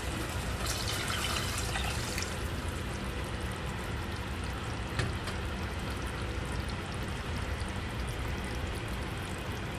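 Water poured from a bowl into a pot of pork simmering in tomato sauce, splashing for the first two seconds or so. After that a steady hiss continues, with a single click about halfway through.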